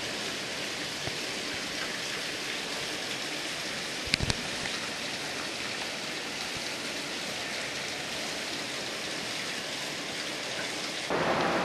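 Steady rushing hiss of hot-spring water flowing and splashing into an outdoor rock bath, with a couple of light knocks about four seconds in. Near the end it cuts suddenly to a louder, broader noise.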